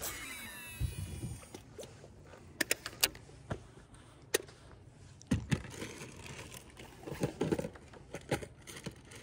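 Scattered clicks, knocks and rattles of fishing gear being handled in a small boat, with a brief squeak in the first second.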